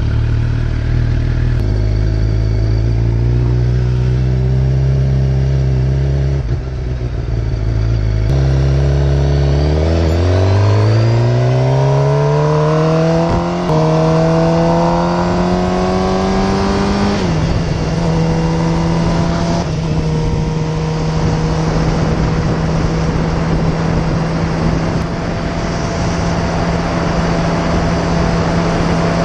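Suzuki GSX-R750 sport bike's inline-four engine heard from the rider's seat. It runs low and steady while pulling out, then climbs in pitch under acceleration, dropping at two upshifts. After that it runs steadily at cruising speed, with wind noise building.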